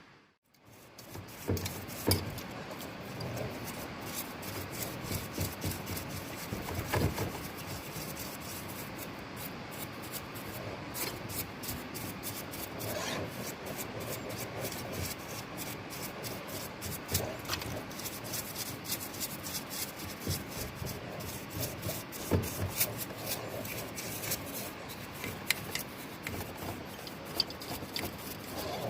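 Continuous rubbing and scraping of hand work on small parts, with frequent small clicks and a few louder knocks.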